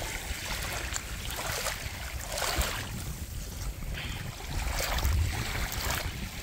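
Small waves washing in and draining over a pebble shore in soft, irregular surges, with wind rumbling on the microphone.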